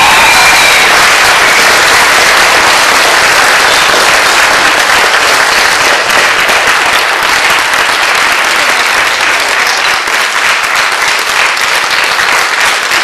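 A theatre audience applauding loudly. The clapping is dense at first and thins a little in the second half, so that single claps stand out.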